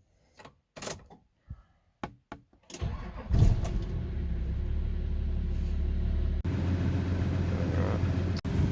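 A few separate clicks and knocks, then an engine starts about three seconds in and settles into steady running, its note shifting a little about two-thirds of the way through.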